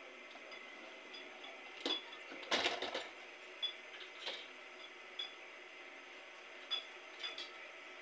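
Household items being handled and set down on a floor: a short clatter about two and a half seconds in, and scattered light clinks and knocks through the rest.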